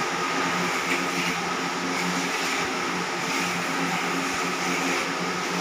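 Electric pedestal fan running: a steady whir with a low motor hum underneath.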